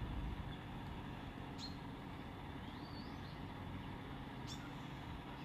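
Quiet background: a steady low rumble with three short, faint bird chirps about a second and a half apart.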